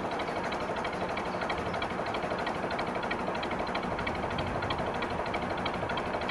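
A narrowboat's engine running steadily while the boat cruises, with a rapid, even beat.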